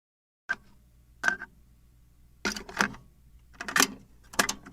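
Cassette mechanism clicks: a run of sharp plastic clicks and clacks, about half a dozen, irregularly spaced, over a faint low hum. It starts about half a second in.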